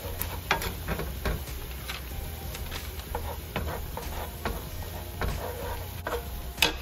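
Wooden spatula stirring and scraping a simmering soy-and-chili dressing around a nonstick frying pan: irregular scrapes and light taps, with one sharper knock of the spatula on the pan near the end.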